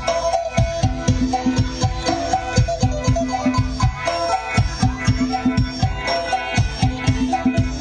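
Traditional Isan folk dance music: sustained held tones over a fast, steady drum beat.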